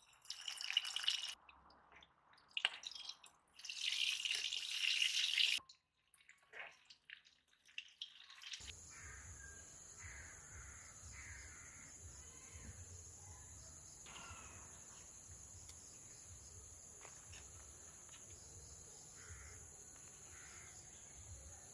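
Cabbage balls sizzling loudly as they are laid into hot oil in a wok, in bursts for the first five seconds or so. After a short lull, a steady outdoor background takes over: a high even drone with faint bird calls.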